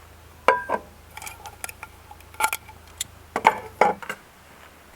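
Dishes and cutlery clinking: several sharp, short clinks with a brief ring, the loudest about half a second in and again near three and a half seconds.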